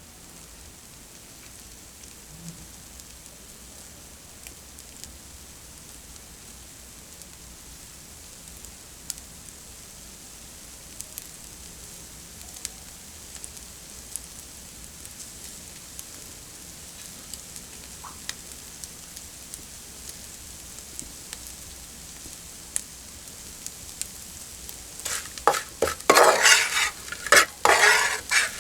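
Fish with shallots and chili sizzling quietly in a pan, a steady hiss with scattered small crackles. About 25 seconds in, loud scraping strokes of a utensil stirring in the pan begin.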